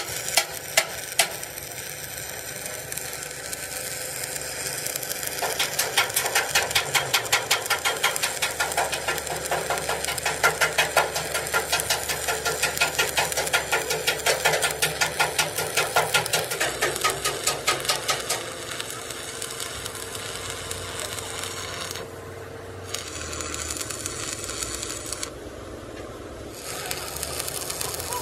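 Metal being hammered in a rapid, even train of blows, several a second, lasting about a dozen seconds, with a few single blows just before. After it comes a steadier machine noise that breaks off briefly twice.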